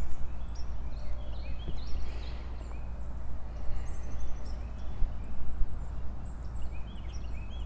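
Small songbirds chirping, with a quick trill about four seconds in, over a steady low rumble.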